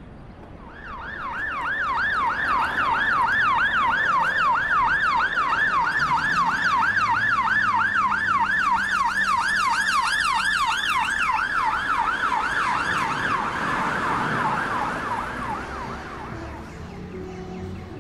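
An emergency-vehicle siren on a fast yelp, its pitch rising and falling about three times a second. It starts about a second in, then blurs and fades away near the end.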